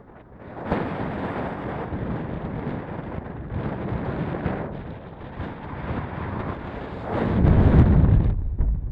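Strong wind buffeting a RunCam camera's microphone: a rushing noise that comes and goes in gusts, loudest in a heavy gust about seven seconds in.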